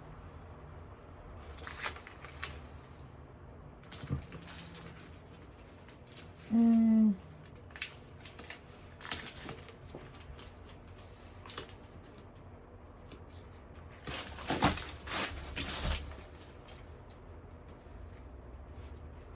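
Scattered handling noises from hands-on work: rustling and crinkling, light clicks, and a few knocks around two-thirds of the way through. About a third of the way in there is one brief, loud pitched squeak that falls slightly in pitch.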